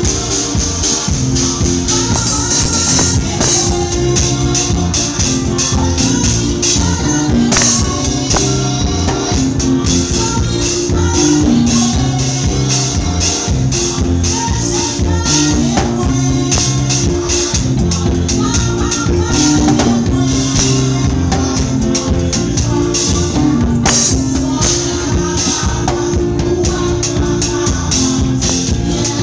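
Drum kit played close up in a live band's kompa groove: a busy, steady pattern of cymbal and drum strokes over sustained bass and chord notes.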